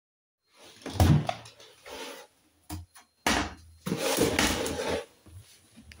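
Hoover front-loading washing machine door being opened with a clunk about a second in, then knocks, clicks and a stretch of rustling as laundry is pulled from the drum.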